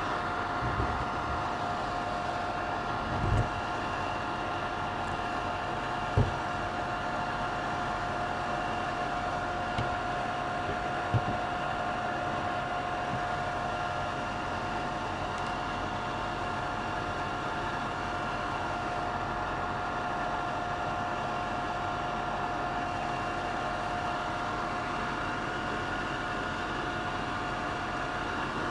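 24-volt cabinet extraction fan running steadily with a constant whine over its airflow noise. A few light knocks in the first dozen seconds.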